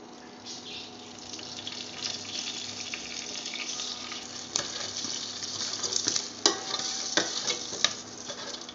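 Curry leaves, dried red chillies and spices sizzling in hot oil in a steel pot, the sizzle swelling from about half a second in, with a spoon stirring and several sharp clicks in the second half. Under it runs a faint steady hum from the induction cooktop through the steel pot.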